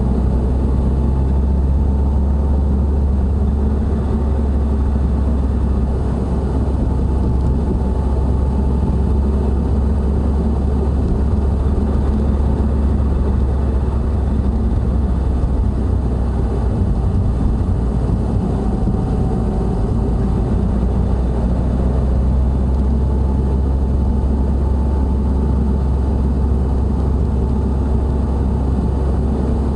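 Inside the cabin of a moving Subaru WRX STI (VAB): a steady low drone over road noise. This is the noise from the front of the car that the owner suspects is a worn front hub bearing.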